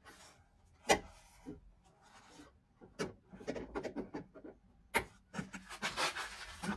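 Hands and pliers working inside a car door cavity to squeeze loose a plastic clip on the window-lift mechanism: three sharp plastic clicks about two seconds apart, then a stretch of rubbing and small knocks as the arm pushes against the door's soft inner membrane near the end.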